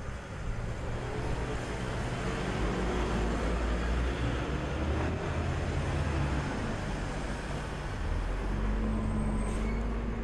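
Street traffic: a motor vehicle's engine running close by as a steady low rumble over general road noise.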